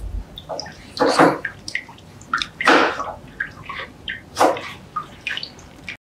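A man's sharp, stifled breaths through a hand held over his mouth, about one every one and a half seconds, with small wet clicks between them. The sound cuts off to silence near the end.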